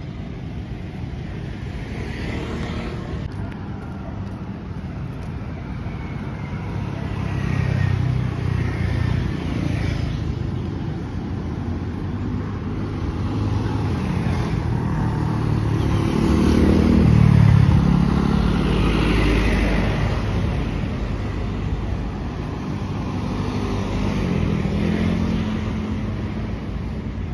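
Road traffic passing on a bridge: cars and motorcycles driving by over a steady background of traffic noise. It swells as vehicles pass, loudest about eight seconds in and again around seventeen seconds in.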